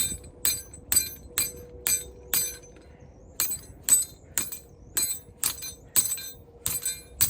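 Hammer striking a steel chain ring, sharp ringing metallic clinks about twice a second with a pause of about a second a little over two seconds in: the ring is being hammered open to take a new O-ring.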